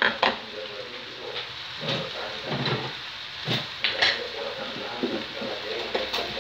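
Cooked rice frying in a nonstick wok with a steady light sizzle, broken by a few sharp knocks.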